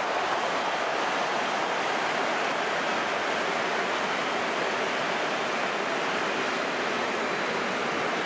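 Large football stadium crowd making a steady, even noise, with no single shout or chant standing out.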